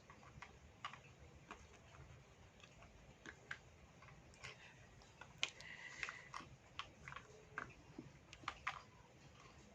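Faint, scattered light clicks and taps of plastic toy pieces being handled, a toy fruit-cutting set.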